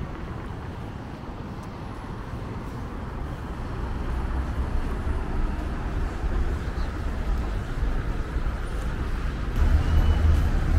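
Busy city street ambience: road traffic passing, its low rumble growing louder about four seconds in and again near the end.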